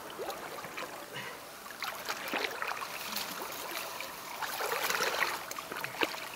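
Water splashing and sloshing at the stream's edge as a hooked wels catfish is grabbed by hand at the bank, with scattered small splashes and clicks, loudest about five seconds in.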